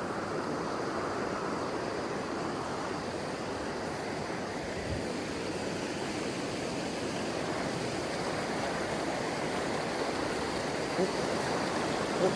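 Steady rushing of river water, an even noise without a pitch, with a couple of brief faint knocks near the end.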